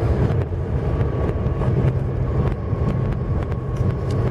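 VAZ 1.6-litre eight-valve engine, fitted with a 56 mm throttle body, and road noise heard from inside the cabin of the moving car, running steadily while driving through town.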